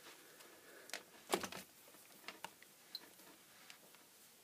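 Faint, scattered small clicks and knocks of objects being handled on a workbench, the loudest about a second and a half in.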